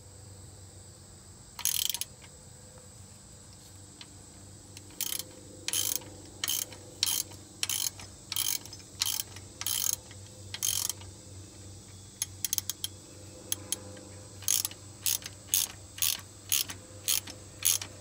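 Hand ratchet clicking as it backs out an alternator bracket bolt: a short burst of pawl clicks on each return swing. The swings come about two a second from about five seconds in, with a quick flurry of light clicks near the middle and a faster run toward the end.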